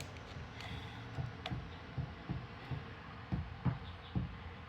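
Irregular light knocks and clicks from taking apart a wall fan by hand and with a tool, about two taps a second.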